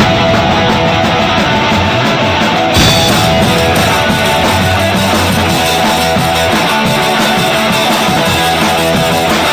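Loud rock music with guitar, with a sharp hit about three seconds in after which the sound brightens.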